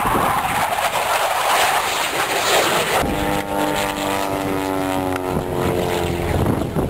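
Propeller airplane flying past, its engine and propeller note falling slowly in pitch as it goes by, after a few seconds of rushing noise.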